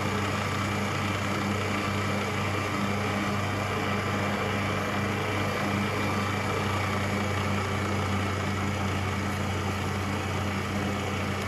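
Electric stand mixer running steadily at low speed, beating sponge-cake batter as flour is added: an even motor hum.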